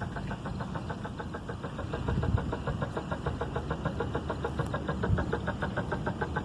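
Engine idling steadily, with a fast, even beat.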